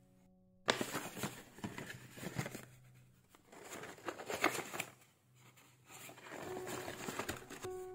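Kraft paper bag rustling and crinkling as it is handled and opened, in uneven spurts with small clicks.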